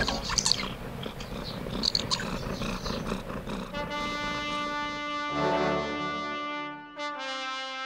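Orchestral music with held brass chords coming in about four seconds in, after a stretch of light clicks and rustling.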